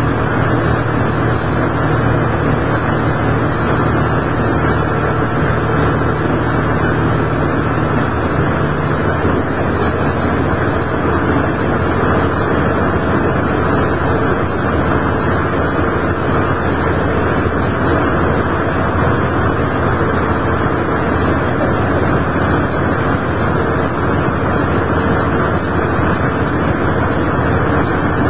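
Steady running noise of a Kamioka Railway diesel railcar, heard inside the cabin while it is under way. A low engine drone sits beneath the noise and drops out about eight seconds in.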